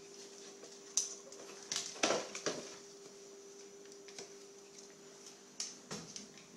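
Scattered clicks, taps and short scrapes of kitchen utensils against a bowl while frosting ingredients are mixed, loudest in a cluster about two seconds in, over a faint steady hum.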